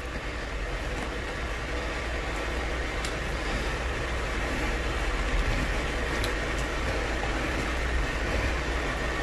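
Steady rushing noise with a low hum underneath, growing slightly louder; a couple of faint ticks break through it.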